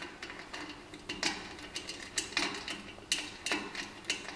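A string of irregular light metallic clicks and taps as a metal guard is fitted back onto the dehulling mechanism of a pedal-powered grain cleaner.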